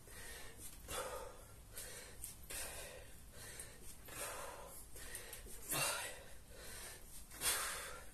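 A man breathing hard from the exertion of kettlebell swings, with forceful, noisy exhales roughly once a second. The loudest breath comes near the end.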